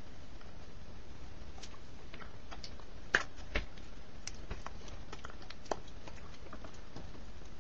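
Steady background hiss with scattered faint clicks and ticks, and two sharper snaps close together a little after three seconds in.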